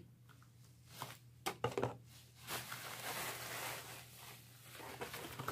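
Plastic bag and packaging rustling and crinkling as they are handled, after a few light clicks and knocks.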